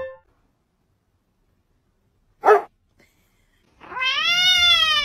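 Tabby kitten meowing: a long drawn-out cry from about four seconds in, its pitch arching up and then down. Before it, a brief noisy burst about halfway through.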